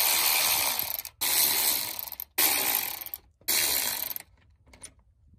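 Milwaukee cordless ratchet running in four bursts of about a second each, spinning out the 10 mm bolts that hold the alternator bracket; it stops a little past four seconds in.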